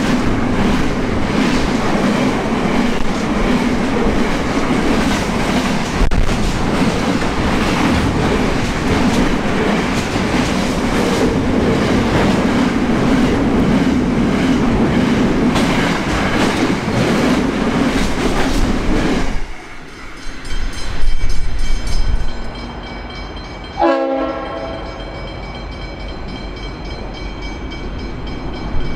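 Intermodal container freight train passing close at speed, its wagons rumbling and clattering over the rails. About nineteen seconds in it cuts off abruptly, followed by a few loud low thuds and a short train horn blast.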